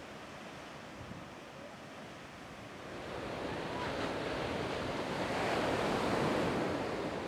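Ocean surf washing in, rising about three seconds in to a louder rush of breaking water.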